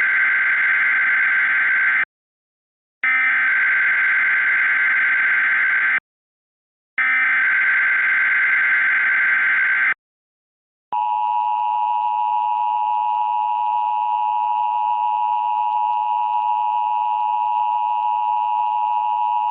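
Emergency Alert System SAME header: three bursts of screechy digital data tones, each about three seconds long with a second's gap between them. About eleven seconds in, the steady two-tone EAS attention signal begins, the sign that an emergency alert is about to be read, here a severe thunderstorm watch.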